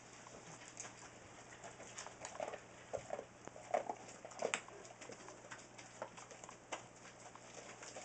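Young Newfoundland puppies making short squeaks and grunts while nursing. The calls cluster in the middle few seconds, among small clicks and shuffling.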